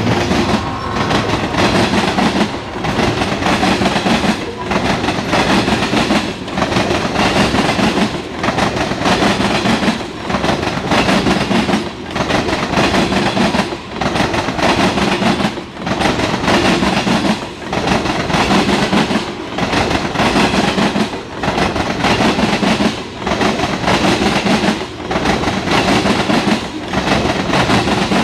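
Loud rumble and clatter of freight train tank cars rolling past close by, steel wheels on rail, swelling and dipping in a regular rhythm about every two seconds as car after car goes by.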